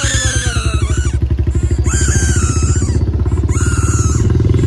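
Royal Enfield Bullet's single-cylinder engine running at road speed, its exhaust beating in quick, even thumps. A higher wavering whine comes and goes about three times over it.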